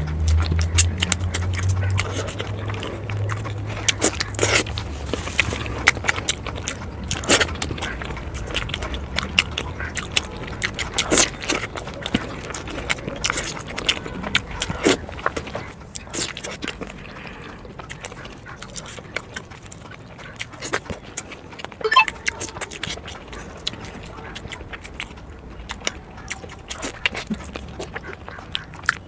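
Close-up mouth sounds of a person eating spicy eggs: wet chewing, lip smacks and clicks, coming thick in the first half and sparser after about the middle. A low hum sounds in the first few seconds.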